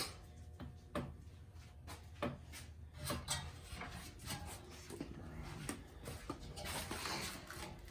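Scattered light clicks, knocks and rubbing of hands and tools working on parts, with no steady rhythm.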